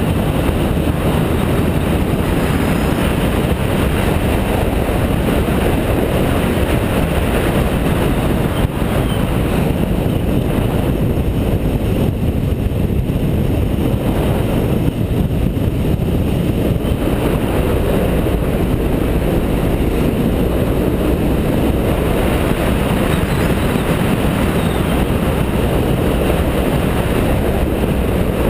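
BMW F650GS motorcycle running at road speed, its engine under a steady rush of wind noise on the bike-mounted camera, easing slightly for a few seconds midway.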